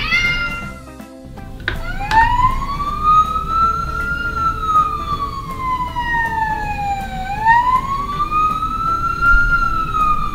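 A wailing siren sound that starts with a click about two seconds in, then slowly rises and falls, about one swell every five seconds, over light background music.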